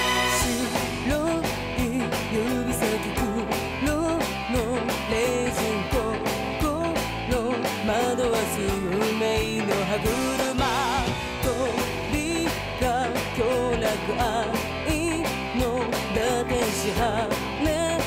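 A pop song with a woman singing over a band with a steady drum beat.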